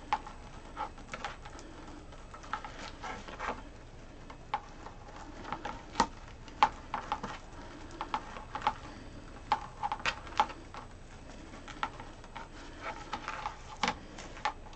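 Snowdrift deco mesh rustling and crackling as it is pulled by hand through a wire wreath frame, in irregular short crackles a few times a second.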